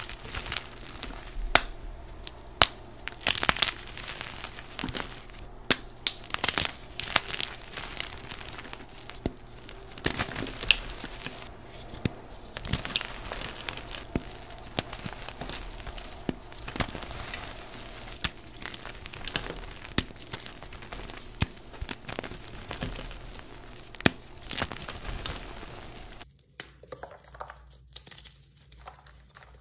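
Bare hands squeezing and crumbling chunks of gym chalk: a dense run of dry crunches and crackles with gritty powdery rustling. About four seconds before the end the sound drops to quieter, sparser crunches.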